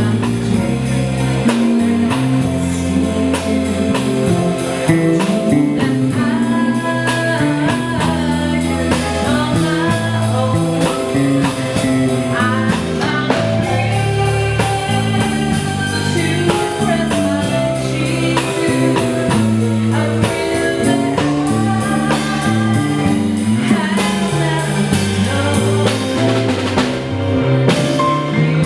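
Live band playing a song: a woman sings lead into a microphone over electric guitar, electric bass, keyboard and drums.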